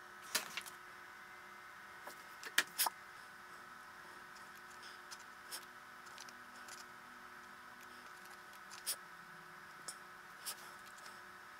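Computer mouse clicks, scattered and irregular, with a quick group of three about two and a half seconds in, over a faint steady electronic hum.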